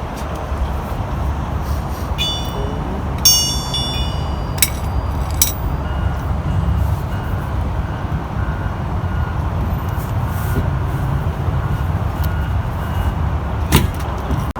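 Steady low vehicle rumble with metallic clinks and knocks during an RV tire change: several bright ringing clinks a few seconds in, sharp clicks soon after, and a single knock near the end.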